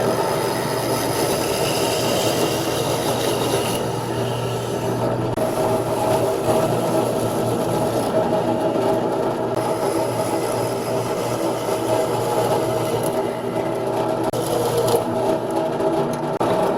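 A woodworking power tool's electric motor running steadily, with a constant hum; the higher part of the sound changes a few times as it works the wood.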